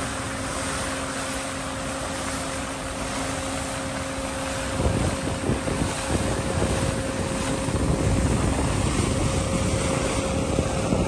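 Sea water rushing and splashing in the bow wave of a large ship under way, with wind noise on the microphone. A faint steady hum runs through the first half, and about five seconds in the low rumble grows louder.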